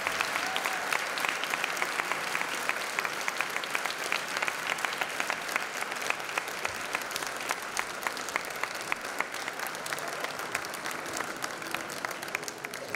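Audience applauding, a dense steady clapping that slowly thins and softens toward the end.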